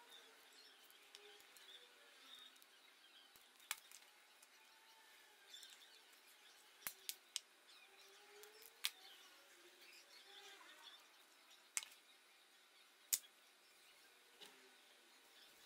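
Faint bird chirping in the background, broken by a handful of short, sharp clicks and taps from hand tools being handled at a motorcycle wiring harness, three of them close together about seven seconds in.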